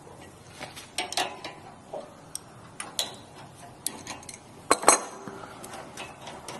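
A metal wrench clinking and clicking against the steam valve tube nut on an espresso machine as the nut is loosened. Irregular sharp metallic clicks, the loudest about five seconds in.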